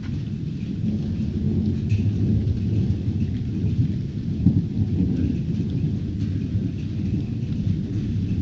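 Thunder rumbling on and on through a storm, with rain falling and faint drops ticking.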